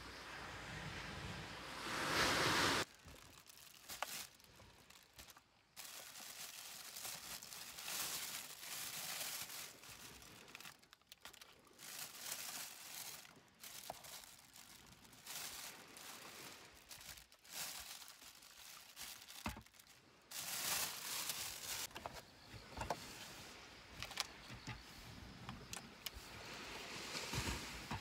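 Waves washing on a shore, swelling and then cutting off abruptly about three seconds in. After that, plastic carrier bags crinkle and rustle in irregular bursts as they are handled and rummaged through.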